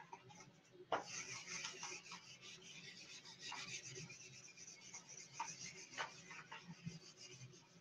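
Faint scratchy rubbing of handwriting, made in short strokes with a few light taps from the writing tip, starting about a second in.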